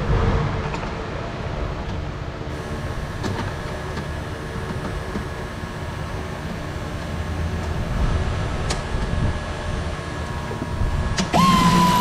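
Car engine running steadily. About a second before the end, a much louder sound cuts in suddenly, with a high whine that rises and then holds steady.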